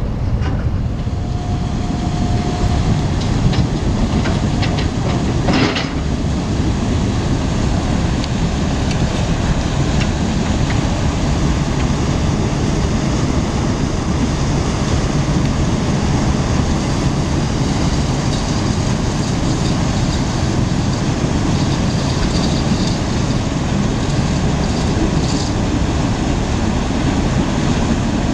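Marine diesel engines running with a steady, loud, low rumble as a tug works a departing cargo ship. A brief steady tone sounds near the start, and a few knocks come a few seconds in.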